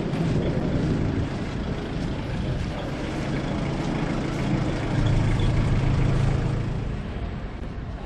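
A heavy engine running with a low, steady hum over street noise. It grows louder about five seconds in and fades again about two seconds later.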